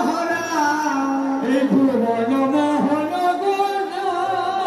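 Music: a song with a singing voice holding long notes and gliding between them.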